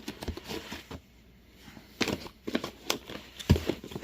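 MRE meal pouches being handled and pulled out of their cardboard case: stiff plastic rustling with scattered knocks, the heaviest about three and a half seconds in.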